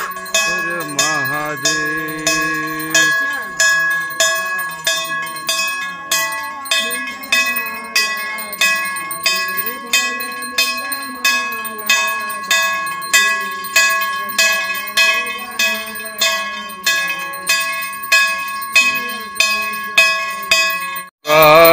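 A temple bell rung steadily for the aarti, about two strokes a second, each stroke ringing on into the next, with voices singing beneath it. Near the end the sound cuts out for a moment and the bell comes back louder.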